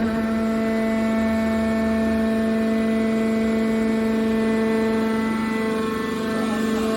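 Hydraulic power unit of an aluminium-can baler press running: a steady motor-and-pump hum on one constant pitch, wavering slightly near the end.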